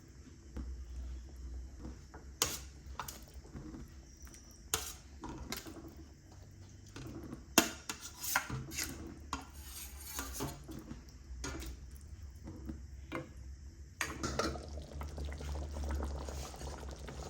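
Kitchen utensils clinking, knocking and scraping against pots and dishes while food is stirred, with a few sharper knocks.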